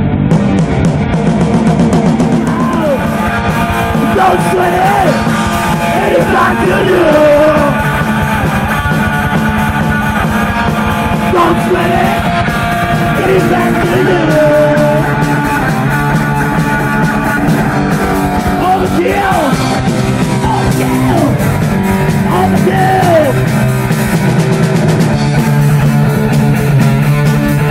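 Live rock band playing at full volume: electric guitar, bass guitar and drum kit, with a male lead vocal sung into the microphone over most of the stretch.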